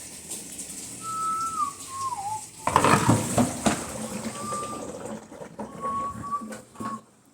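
Someone whistling a few short wavering notes, with a burst of clattering knocks about three seconds in that is the loudest part.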